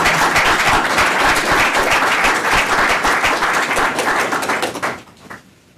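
Audience clapping, fading away about five seconds in.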